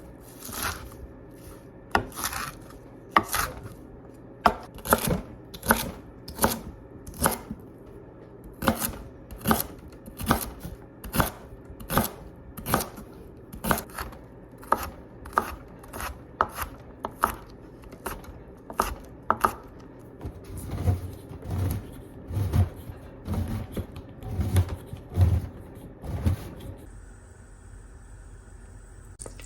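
Kitchen knife chopping vegetables on a cutting board in slow, even strokes, a little over one a second. The chopping stops near the end.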